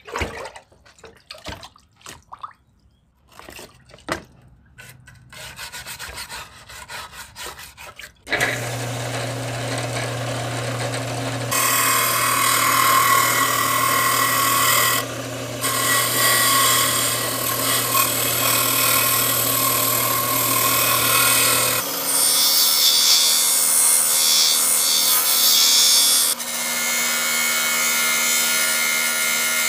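Scattered clicks and short scraping sounds of hand work, then about eight seconds in an electric power tool starts and runs steadily, grinding or sanding against the workpiece. Its tone changes several times, notably around a third of the way through and again about two-thirds in.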